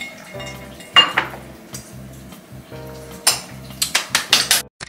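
A spoon and glass clink against the table about a second in. Near the end comes a quick run of hand claps, over background music.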